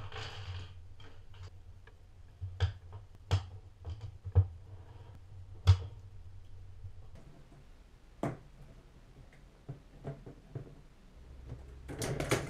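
Plastic K'Nex rods and connectors clicking and tapping against each other and the tabletop as they are laid out and snapped together: irregular sharp clicks, several loud ones, with a quick flurry near the end.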